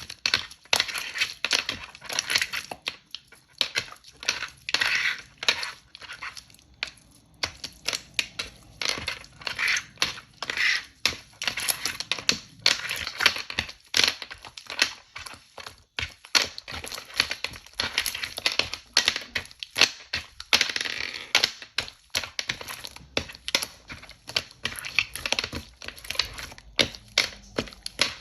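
Slime being squished and pressed by hand, with dense, irregular crackling and popping clicks.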